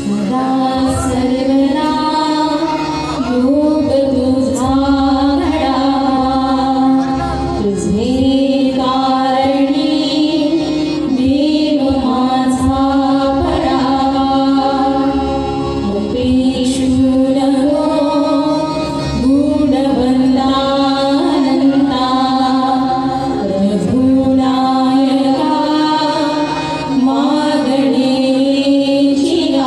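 Live Indian devotional song: a voice singing long, sliding melodic phrases over a sustained instrumental accompaniment.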